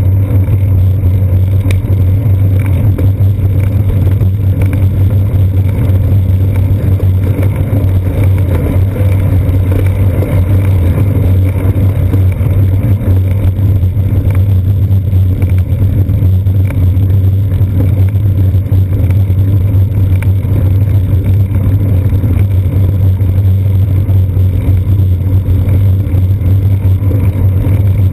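Steady, loud low rumble of wind and road vibration picked up by a seat-post-mounted GoPro Hero 2 on a moving bicycle rolling over pavement.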